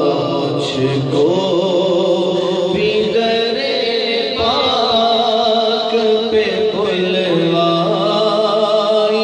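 Male voice singing a naat, an Urdu devotional poem in praise of the Prophet, into a microphone, drawing out long melodic lines without clear words.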